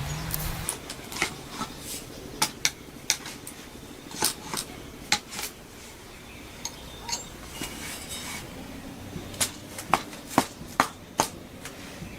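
A series of irregular sharp knocks and clinks of hard objects, coming every second or so.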